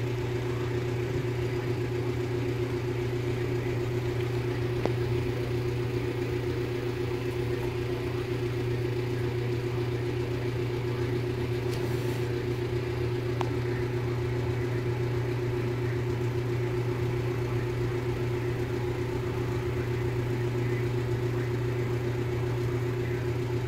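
A steady low mechanical hum, with a faint tap about halfway through.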